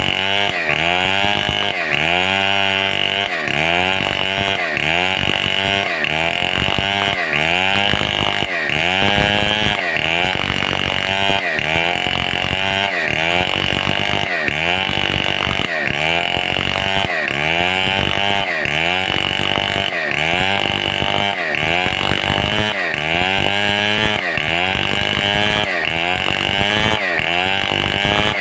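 Stihl 070 two-stroke chainsaw running at high revs while cutting timber. Its pitch dips and climbs back over and over, about once every second and a bit, as the engine is loaded and recovers in the cut.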